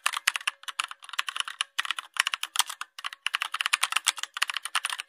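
Keyboard typing sound effect: rapid key clicks in quick runs broken by brief pauses, as on-screen text is typed out letter by letter.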